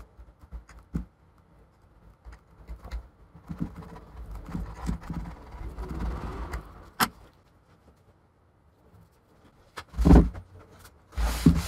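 Fingers picking and rubbing at sticky adhesive residue along the edge of an aluminium iMac case, with small clicks and scratchy rubbing and one sharp click. About ten seconds in comes a loud paper-towel rustle, and near the end the towel starts rubbing across the metal.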